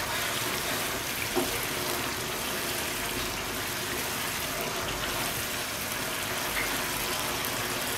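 Thick spice paste bubbling and sizzling in a frying pan as it is fried down (bhuna) and stirred with a wooden spatula: a steady hiss, with a faint knock about a second and a half in.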